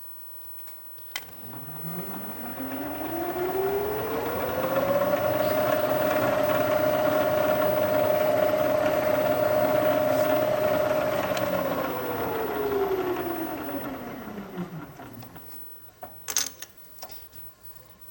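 Milling machine motor starting up, its whine rising in pitch over a few seconds, then running steadily and coasting down to a stop. A few sharp clicks follow near the end.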